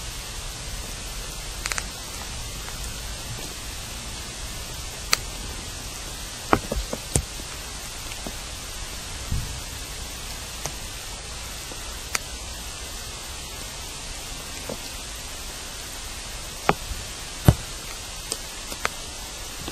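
Steady hiss picked up by a listening microphone down a borehole, broken by about a dozen irregular sharp clicks and knocks, the loudest near the end. The uploader takes these sounds for signs of people in a tunnel 20 m below ground.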